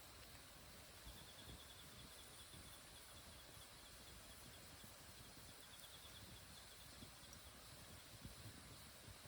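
Near silence of open countryside, with a faint, high, rapid insect trill twice.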